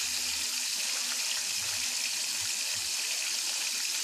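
Pork chops frying in hot grease: a steady sizzling hiss.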